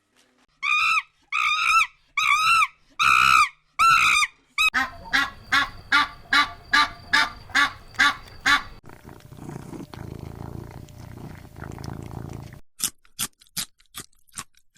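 A run of different animal calls, one recording after another. First come five repeated calls that rise and fall in pitch, then a fast train of short pulsed calls, then a rough rasping stretch, and near the end a quick series of sharp high chirps.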